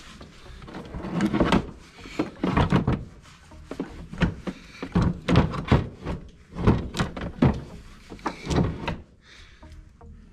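Irregular clunks, knocks and scrapes of a snowmobile engine and its metal parts being pushed and levered around inside the engine bay, quieter near the end.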